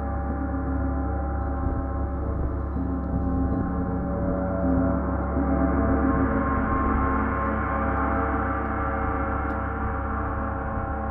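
34-inch Paiste Symphonic gong played continuously with a felt mallet: a sustained wash of many overlapping tones, swelling about halfway through and easing a little near the end.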